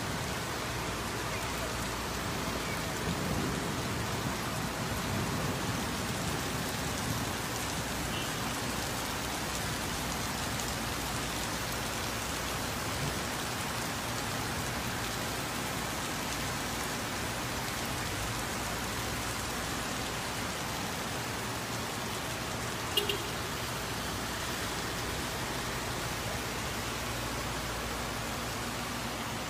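Heavy rain falling steadily on a street, a continuous hiss, with one brief sharp click late on.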